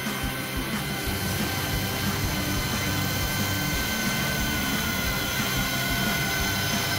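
V915 four-channel RC helicopter in flight: its small electric motor gives a steady whine that wavers slightly in pitch as the throttle changes.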